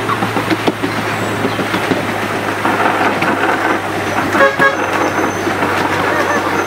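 Ridable miniature railway train running along the track: a steady low hum and rumble with irregular wheel clicks on the rails, and a short horn toot about four and a half seconds in.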